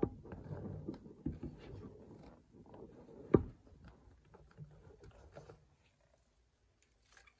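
Tight-fitting cardboard lid of an iPad Pro box being worked off its base by hand: soft rubbing and handling noises, with one sharp knock about three and a half seconds in. The handling dies away about six seconds in.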